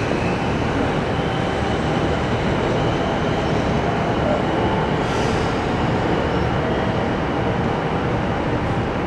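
JR Central 313-series electric train approaching a station platform, a steady rumble of wheels on rail. A short hiss comes about five seconds in.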